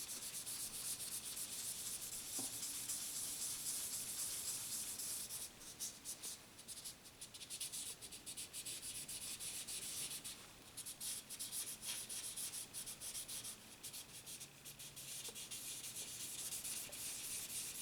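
Fine 2000-grit sandpaper rubbed by hand over a pocket knife, a steady hiss for the first few seconds, then quick back-and-forth strokes with short pauses.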